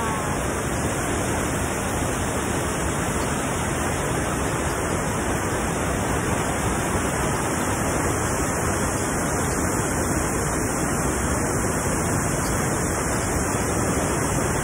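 Waterfall pouring over rock ledges: a steady, even rush of falling water.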